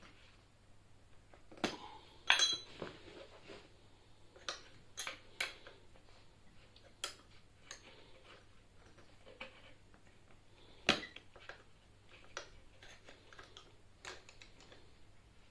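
Tyre levers clicking and clinking against the e-scooter's wheel rim as a tight tyre bead is levered back on. Scattered irregular knocks, with a sharp ringing clink about two seconds in and another loud knock near eleven seconds.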